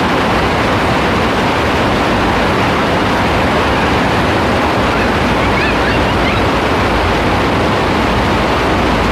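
Heavy rain falling: a steady, loud hiss with no let-up, with a few faint, short, high chirps about five to six seconds in.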